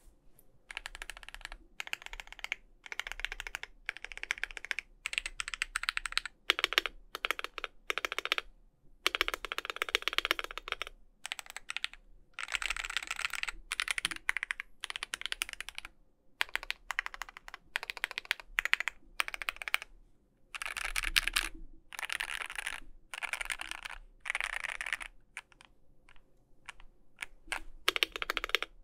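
Typing on a KBDFans KBD67 V3 keyboard with lubed, filmed C³ Fierce Girls linear switches in a polycarbonate plate, tape-modded, under ePBT Sushi keycaps. Fast runs of keystrokes a second or two long broken by short pauses, with a few single key presses near the end before a last quick run.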